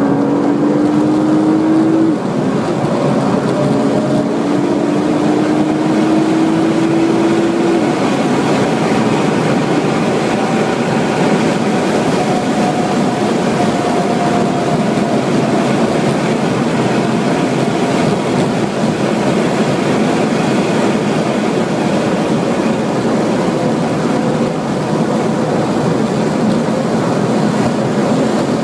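Nissan GT-R's twin-turbo V6 accelerating hard, heard from inside the cabin. Its note climbs, breaks at a gear change about two seconds in, and climbs again for about six seconds. It then merges into a steady rush of wind and tyre noise at high speed.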